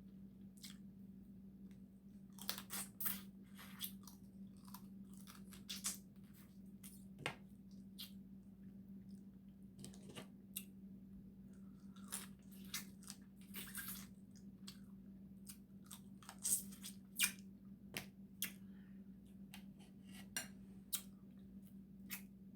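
Close-up chewing and crunching while eating Dungeness crab, with irregular clicks and cracks of shell. A steady low hum runs underneath.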